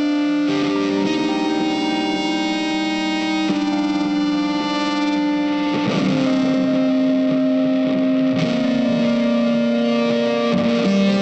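Background music: distorted electric guitar playing sustained notes.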